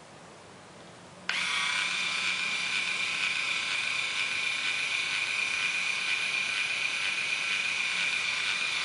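InStyler rotating hair iron's small electric motor turning the barrel. It switches on suddenly about a second in and runs as a steady high whine.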